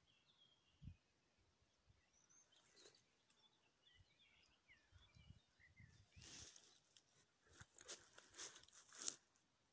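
Faint bird chirps, then from about six seconds in a series of rustling crunches, the loudest just after nine seconds.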